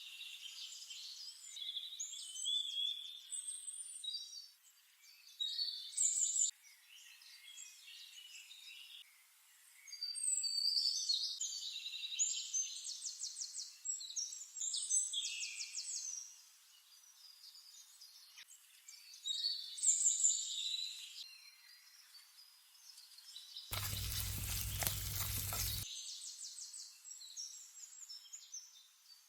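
Birds singing outdoors: a run of high chirps, quick trills and rising and falling calls. About two-thirds of the way through comes a two-second rush of noise that covers the birdsong.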